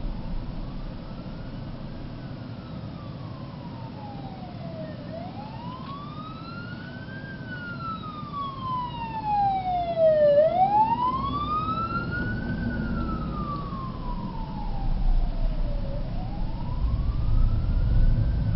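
Fire truck siren wailing, its pitch slowly rising and falling about every five seconds and growing louder about halfway through as it draws closer. Heard from inside a moving car, with road noise underneath.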